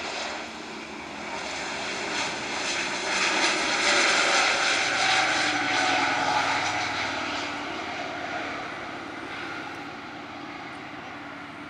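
Airbus A320neo airliner's Pratt & Whitney PW1100G geared turbofan engines at takeoff thrust as it rolls down the runway and lifts off. The sound swells to its loudest about four to six seconds in, then fades with a falling whine as the jet climbs away.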